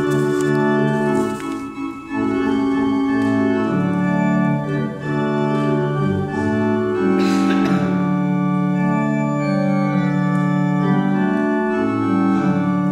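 Organ music playing slow sustained chords that shift every second or so, beginning to die away right at the end as the music is stopped for the pass-the-parcel game.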